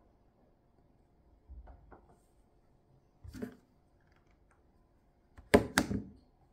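Plastic baby spoon knocking and scraping in a plastic tub of puree: a few soft clicks and knocks, then two sharp clicks close together near the end.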